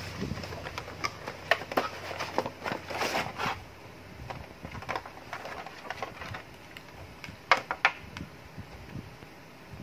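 Cardboard headphone box and its packaging being handled and opened: a busy run of rustles, scrapes and light knocks, densest in the first few seconds. Two sharp clicks come about three-quarters of the way through, as the headphones are lifted from their tray.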